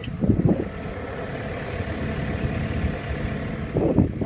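Diesel engine of a Cat 312E L hydraulic excavator running steadily, heard from inside the cab, with two brief louder surges, one about a third of a second in and one near the end.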